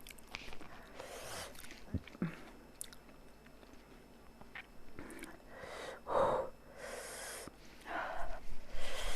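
A person hissing air in and out through the mouth in a series of breaths, from the burn of very spicy noodles, with a few small mouth clicks and chewing sounds. The loudest breath comes about six seconds in.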